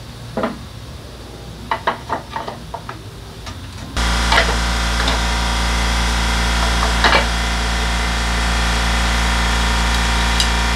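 Hand tools knocking and clinking against metal parts at a motorcycle's rear wheel and chain. About four seconds in, a loud steady hum comes in suddenly and carries on under a few more knocks.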